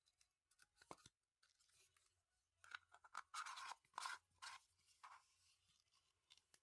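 Faint rustling and crinkling of merch packaging being handled and unwrapped, with a few clicks about a second in and a busier stretch of crinkling in the middle.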